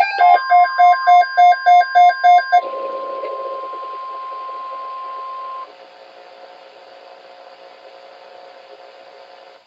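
Loud electronic alarm beeping, about three to four beeps a second, which stops about two and a half seconds in. Under it, the steady 1050 Hz NOAA Weather Radio warning alarm tone sounds alone for a few more seconds and cuts off suddenly, leaving a faint radio hiss.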